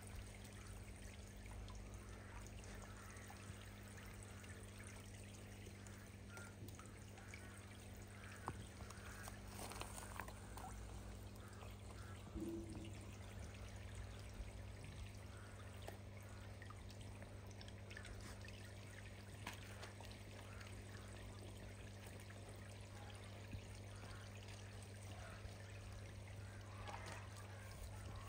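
Water spraying and trickling from a pipe into a garden pond, a faint steady splashing, over a steady low hum.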